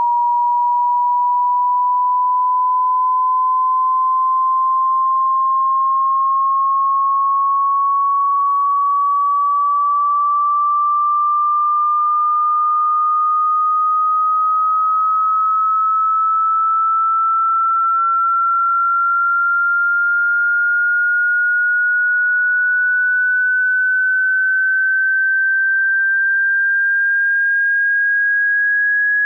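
A single pure sine-wave test tone of a hearing-test frequency sweep, rising slowly and evenly in pitch at a steady volume.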